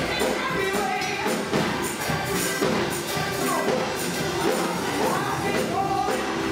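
Gospel choir singing with band accompaniment and a shaken tambourine keeping the beat.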